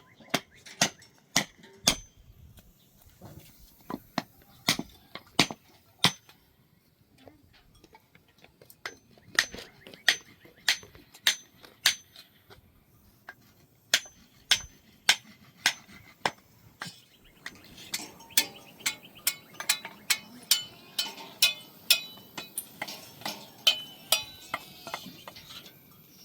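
A long series of sharp strikes, one tool hitting something hard again and again, each blow with a brief bright metallic ring. The blows come in runs of about two a second, with short pauses between runs, and get quicker and closer together over the last third.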